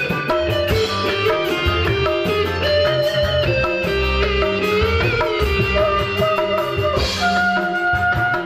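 Live dangdut band playing an instrumental passage: an electric guitar melody over hand drums and bass, with no singing.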